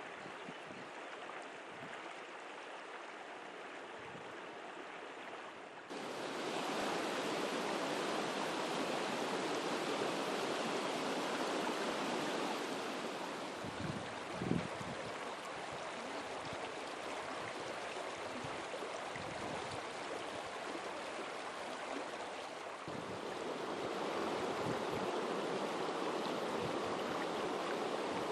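Flowing water rushing steadily, turning suddenly louder and brighter about six seconds in, with a brief low bump near the middle.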